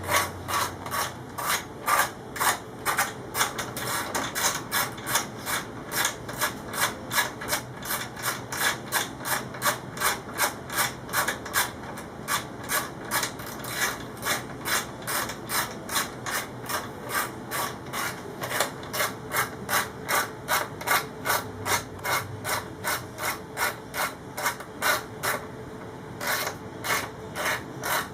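LighTech chain adjuster being wound by hand, its internal detent clicking at each increment in a steady run of about two to three clicks a second, with a brief pause near the end.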